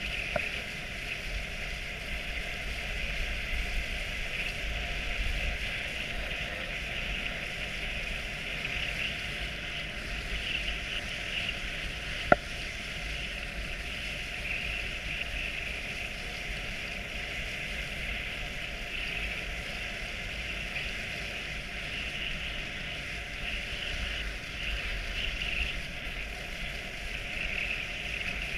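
Steady hiss of a dogsled gliding over packed snow behind a six-dog team, with low wind rumble on the microphone. A single sharp click about twelve seconds in.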